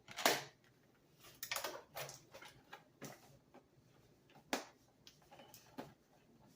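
Hands handling a toy's retail packaging: irregular rustles and small clicks and scrapes at uneven intervals as the toy horse is worked out of its box.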